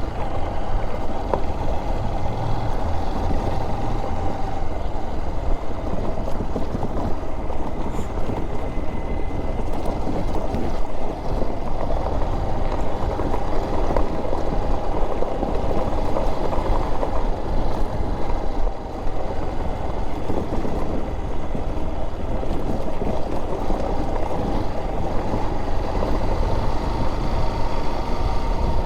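Honda XR trail motorcycles' single-cylinder engines running steadily while riding along a dirt road.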